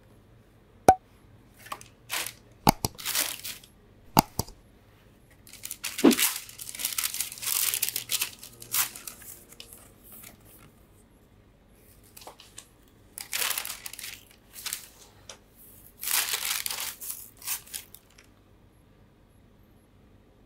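Unboxing of a cardboard shoebox: a few sharp clicks and taps from the lid and box, then several bursts of rustling, crinkling tissue paper and booklet paper, each lasting a second or more.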